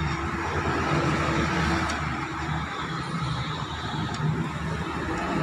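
Steady low rumble of a motor vehicle running nearby, with a couple of faint light ticks from metal parts being handled.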